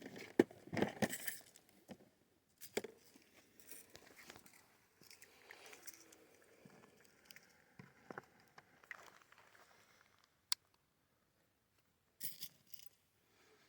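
Handling noises while getting out percussion caps for a black-powder pistol: scattered rustling, scraping and small clicks, busiest in the first second or so, with one sharp click about ten and a half seconds in.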